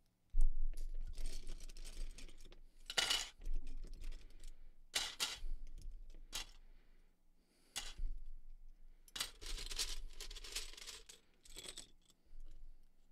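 Loose plastic Lego pieces dropped by the handful into a glass cup, clattering and clinking against the glass. The first drop, about half a second in, is the loudest, and several more bursts of clatter follow.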